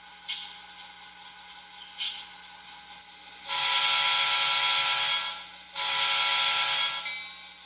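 SoundTraxx Tsunami 2 decoder's EMD diesel sound playing through the model's small, not-yet-sealed speaker: the engine idling, two brief sharp sounds in the first two seconds, then two horn blasts, a long one of about two seconds followed by a shorter one.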